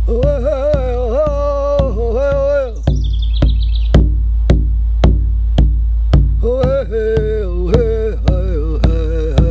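A man chanting in a wavering voice while shaking a hand rattle in a steady beat of about two strokes a second, over a steady low hum. The voice breaks off about three seconds in, where a short high warbling tone sounds, and comes back about six and a half seconds in.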